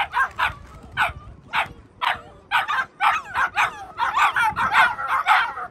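Aussiedoodle puppies yipping and barking in short, high yaps, spaced at first and then coming faster and overlapping from about two and a half seconds in.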